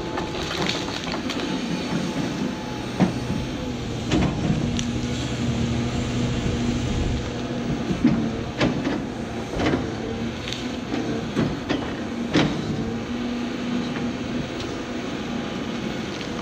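Caterpillar 349F excavator's diesel engine running steadily under load while its bucket digs in at a big stump, with a series of sharp cracks and knocks spread through the digging.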